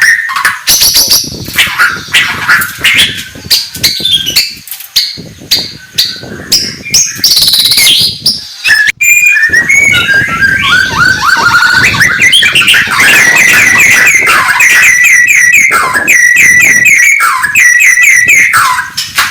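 White-rumped shama (murai batu) singing loudly: a varied song of quick whistles and sharp clicking notes, then, after a sudden break about nine seconds in, a long fast run of repeated whistled phrases that dip in pitch.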